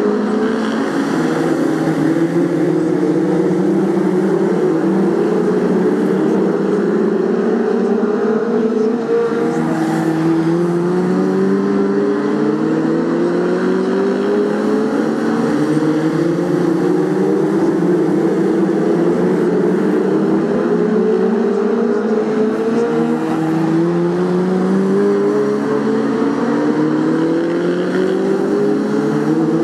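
BriSCA F2 stock car engines racing, several cars at once, each engine note rising as the cars accelerate out of the bend and falling back, again every few seconds.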